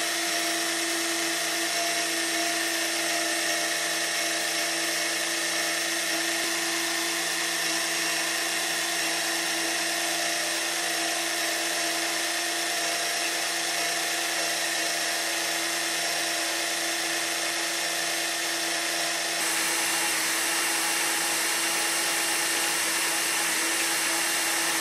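Homemade 12-volt electric oil extractor pump running with a steady, drill-like whine, primed and drawing warm 10W-40 motor oil through its tubing. It gets a little louder and fuller about three-quarters of the way through.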